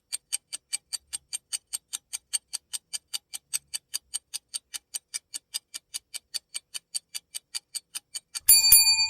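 Timer ticking steadily, about four and a half ticks a second, counting off the timed exercise. Near the end the ticking gives way to a loud, bright ringing chime that marks the time being up.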